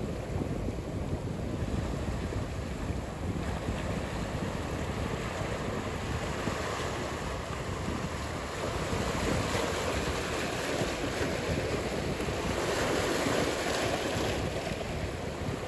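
Ocean surf: a steady wash of breaking waves, growing a little louder in the second half.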